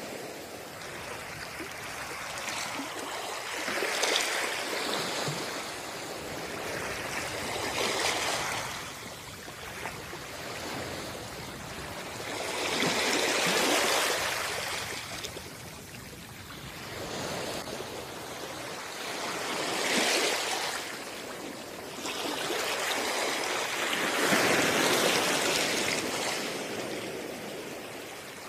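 Sea waves washing onto a shore, the surf swelling and falling back every few seconds.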